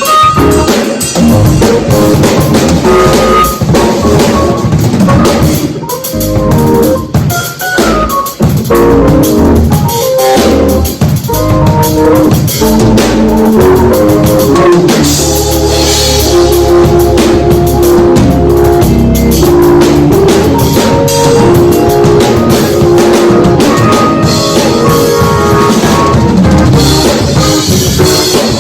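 Instrumental music with a drum kit playing a steady beat over sustained pitched notes.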